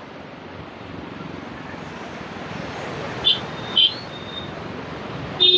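Road traffic noise, motorbikes and auto-rickshaws passing, growing slowly louder. Two short high horn beeps come about three seconds in, and a longer high beeping tone starts right at the end.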